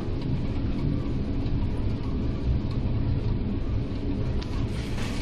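Steady low rumble of storm wind and heavy seas, heard from inside a container ship's bridge. A hissing rush builds near the end as the bow ploughs into a wave and throws up spray.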